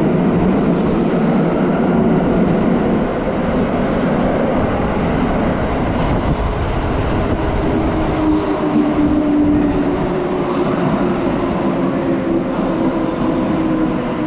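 Kintetsu electric train pulling into an underground station platform: a steady loud rumble of wheels and running gear, with a steady whine joining about halfway through as the train comes alongside the platform.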